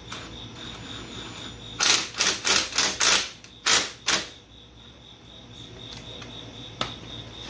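Cordless power tool run in about seven short, loud bursts over two and a half seconds, tightening the brake hose fitting on an ATV's new disc brake. A single sharp click follows near the end.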